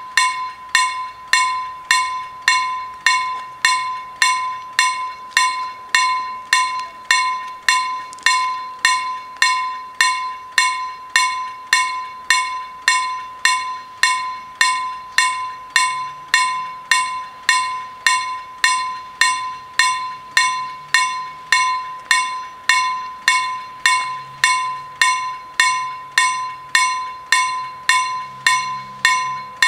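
Level crossing warning bell striking steadily at about three strokes every two seconds, each stroke ringing briefly. It is the crossing's alarm sounding while the red lights flash to warn of an approaching train.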